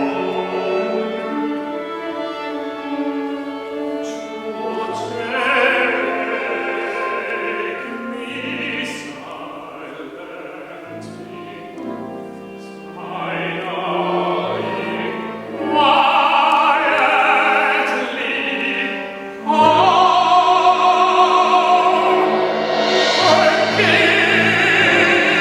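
Operatic singing with instrumental accompaniment: sustained, wavering sung notes over a lower accompaniment, swelling suddenly much louder about twenty seconds in.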